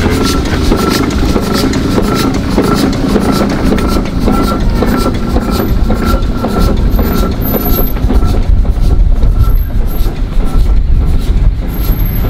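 Steam road roller driving past towing a living van: the engine chuffing in a steady, even beat over a heavy rumble of iron rolls and iron-tyred wheels on the road.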